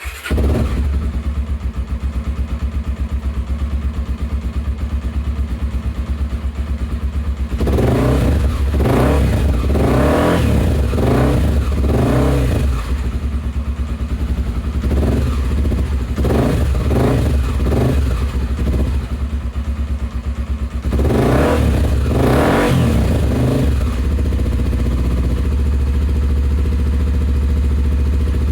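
Honda XR250 Tornado single-cylinder engine breathing through a Pro Tork V3 sport exhaust, idling with a steady low beat and blipped several times: a cluster of quick revs about eight to thirteen seconds in, more around fifteen to nineteen seconds, and a final pair around twenty-one to twenty-three seconds, before settling back to idle.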